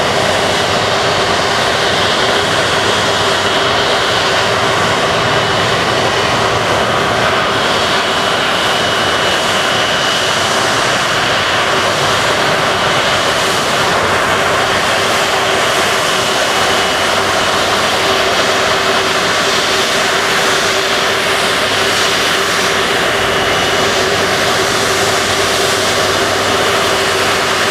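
Jet engines of an Airbus A330-243, Rolls-Royce Trent 700s, running steadily: a loud, even rush with a held whine through it.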